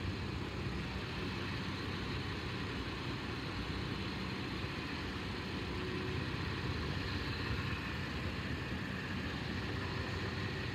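SUV engine running at idle as the vehicle creeps backward, reversing a boat trailer into a parking space; a steady low hum throughout.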